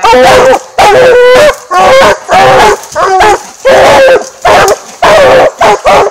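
Treeing walker coonhounds barking loudly and close, a rapid run of about ten barks with some calls overlapping.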